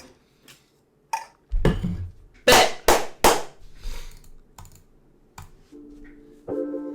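A handful of sharp clicks and knocks, like keys or a desk being struck, with the loudest three in quick succession about two and a half seconds in. Near the end the song's intro starts: a few held, keyboard-like notes stepping between pitches.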